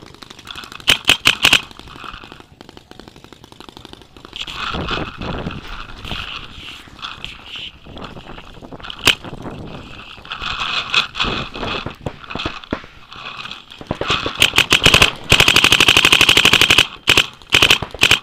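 Paintball markers firing: two quick strings about a second in, a single shot around nine seconds, a long fast string of shots from about fourteen to seventeen seconds, then short bursts near the end, with lighter scattered firing in between.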